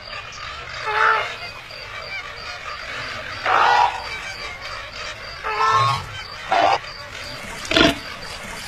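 Cartoon flamingo calls: five short, pitched calls at uneven gaps over a steady low background hiss. The last call is the shortest and sharpest.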